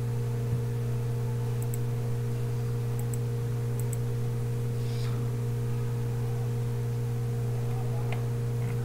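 Steady low electrical hum, one constant low tone with fainter higher overtones, with a few faint mouse clicks on top.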